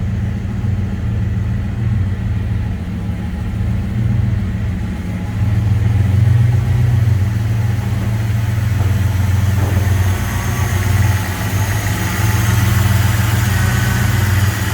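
HSV Walkinshaw's twin-throttle-body 5.0-litre V8 idling steadily, a deep, even low note that grows a little louder about five seconds in.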